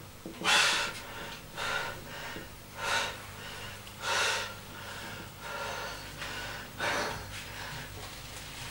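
A man breathing hard after a set of barbell lifts, with loud, rushing breaths about once a second that turn quieter after about seven seconds.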